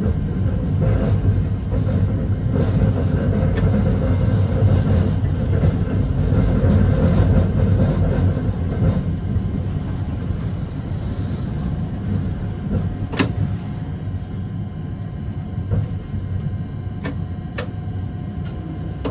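Hakodate city tram running along its street track: a steady low rumble of motors and wheels, quieter in the second half, with a few sharp clicks near the end.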